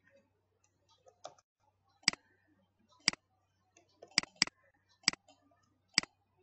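Computer mouse clicks: six sharp, single clicks at uneven spacing, two of them in quick succession like a double-click about four seconds in.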